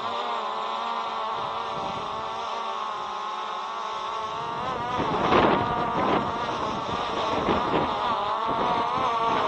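Quadcopter propellers humming at a steady, slightly wavering pitch, with gusts of wind buffeting the microphone about halfway through and again soon after.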